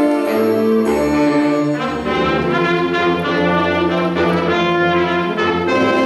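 Student concert band playing a chordal passage, brass and saxophones sounding together over a low bass line. The sustained notes change about once a second.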